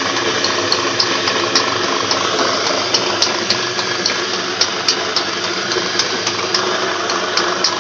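A farm or household machine's electric motor running steadily and loudly, with a low hum and many small irregular clicks and rattles.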